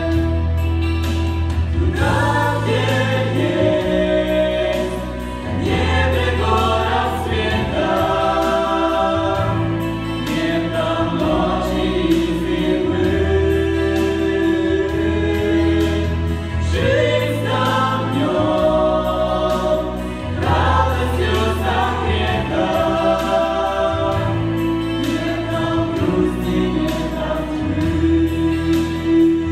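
Choir singing a Christian song in Russian, its phrases rising and falling over an accompaniment of long held bass notes that change every few seconds.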